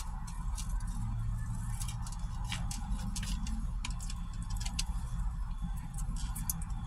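Close-up eating sounds: chewing and lip smacks on a fish sandwich, with many short irregular clicks and the handling of paper food packaging, over a steady low hum.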